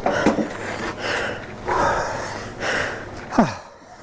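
A man breathing hard and gasping, a loud breath about every second, out of breath from heavy lifting. Near the end comes a sigh that falls in pitch.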